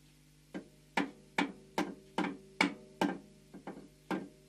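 A hammer tapping a steel milling-machine vise: about ten sharp knocks at a steady two to three a second, starting about half a second in, each with a short metallic ring. The taps nudge the vise square against a dial test indicator reading its jaw.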